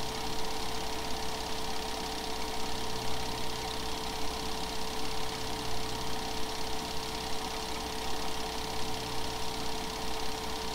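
Film projector running steadily: a constant whirring hum with a steady hiss over it.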